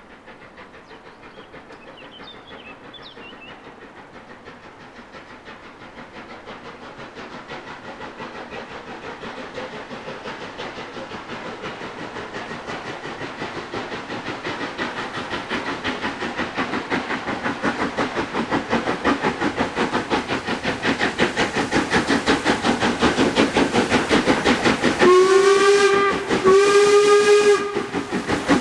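Steam locomotive 46100 'Royal Scot', a three-cylinder 4-6-0, approaching under steam. Its rapid exhaust beats grow steadily louder as it nears, and near the end it gives two whistle blasts of about a second each.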